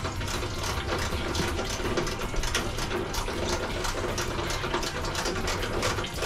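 Hand ratchet wrench clicking in quick runs as radiator bolts are loosened, with water trickling as the radiator drains.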